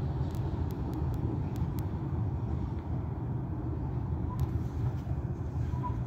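CRRC low-floor tram running, a steady low rumble with a few light clicks in the first two seconds.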